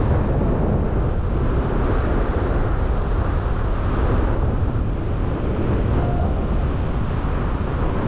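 Wind rushing over an action camera's microphone in paragliding flight in strong, gusty wind: a loud, steady buffeting noise, heaviest in the low range.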